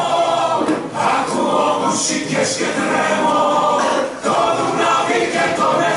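A choir singing, several voices together in sustained phrases.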